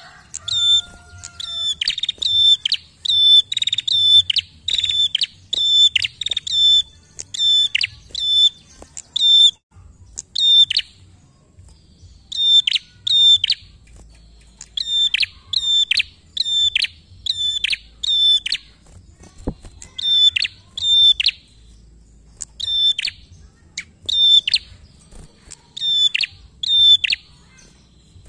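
A prenjak (prinia) calling in full song: a fast, insistent run of short, sharp, high call notes, about two a second, in long runs broken by brief pauses.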